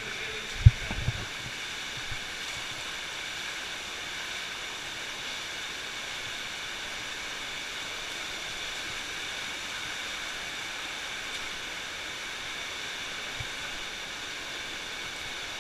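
Steady rush of a stream flowing through a cave. A few dull thumps about a second in, the loudest one first, and one more near the end.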